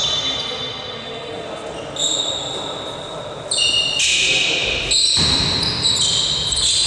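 Basketball game sounds echoing in a sports hall: sneakers squeaking on the court floor in short high-pitched chirps, the first about two seconds in and more from halfway on, with the thud of the ball bouncing.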